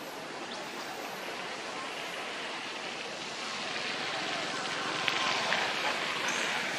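Steady outdoor noise like wind through the trees, a little louder in the second half, with a faint high chirp near the end.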